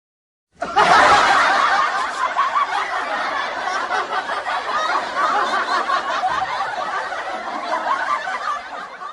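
A crowd laughing, like a sitcom laugh track, starting abruptly about half a second in. It is loudest at the start and eases off slightly before cutting off at the very end.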